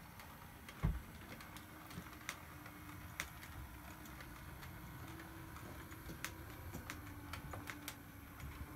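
Model railway running: a faint wavering motor hum with irregular light clicks, typical of model train wheels over rail joints and points, and one low bump about a second in.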